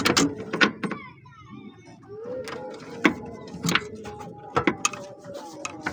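Irregular sharp metallic clicks and taps, roughly one a second, from hand tools (a socket and pliers) working the adjusting nut of a car's clutch cable.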